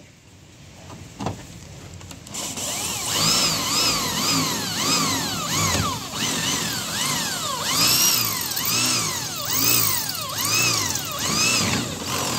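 Corded electric hand drill boring through a metal latch plate on a truck box door to make a fastener hole. From about two seconds in, its pitch swells up and falls back over and over, about three times every two seconds.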